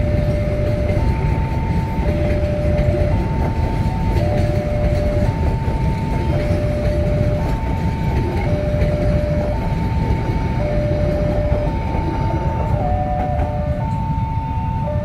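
Level-crossing warning alarm sounding a steady two-tone high-low chime, alternating about once a second, over the continuous rumble of a passenger train's coaches rolling past on the rails.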